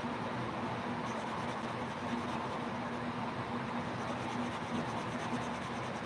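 Black Sharpie marker rubbing back and forth on watercolour paper as a solid black shape is filled in: a soft, steady scratching. A steady low hum runs underneath.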